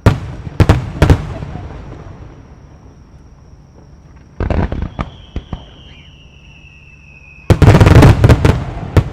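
Fireworks display: three loud aerial shell bursts in the first second, each with a rolling echo, a short cluster of cracks about four and a half seconds in, then a thin falling whistle and a dense rapid volley of bangs from about seven and a half seconds.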